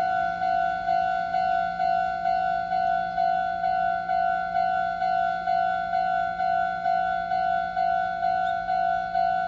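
Japanese railway level-crossing warning bell: an electronic ringing tone repeating evenly at about two strikes a second. It is the signal that a train is approaching the crossing.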